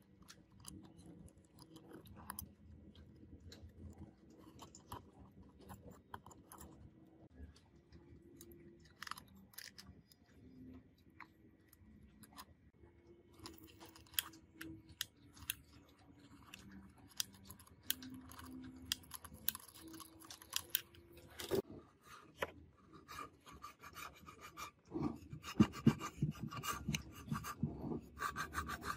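Small hand tools scraping and rubbing on a paper loudspeaker cone, a thin blade picking at the centre around the voice coil, with scattered light clicks. Near the end the scraping grows louder and denser.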